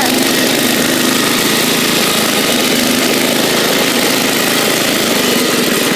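Bolens garden tractor engine running steadily as the tractor is ridden.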